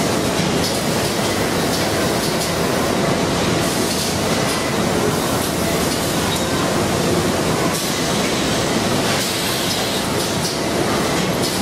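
Steady noise of automatic bag-packing and palletizing machinery running, with a few brief hisses.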